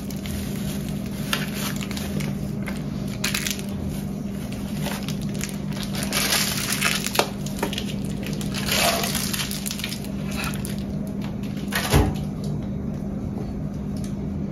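Spoon scooping and scraping thick brigadeiro filling out of a container onto a cake layer in irregular scraping strokes, with one sharp knock about twelve seconds in, over a steady low hum.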